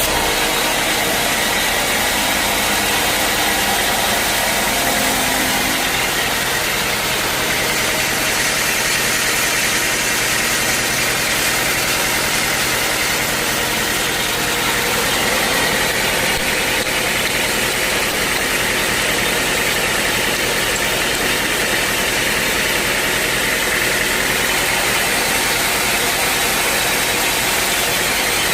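Sawmill running steadily at an even, loud level, its motor and saw noise unbroken throughout.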